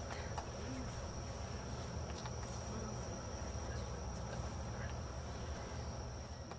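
Insects droning steadily at one high pitch, over a low rumble on the microphone.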